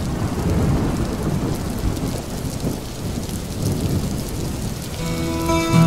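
Steady rain falling, with a low rumble of thunder underneath. A few held music notes come in near the end.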